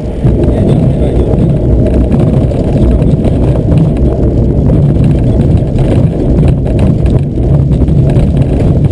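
Glider's landing wheel rolling over a bumpy grass strip, a loud continuous low rumble and rattle carried through the fuselage into the cockpit.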